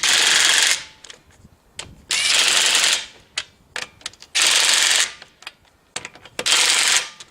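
Ridgid 18V brushless half-inch impact wrench hammering in four short bursts of under a second each, with light clicks between them.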